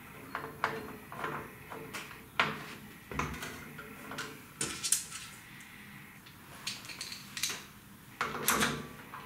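Hex key turning the mounting screws of an electronic safe lock body on a steel door: irregular light metallic clicks and clinks as the key seats in the screw heads and turns.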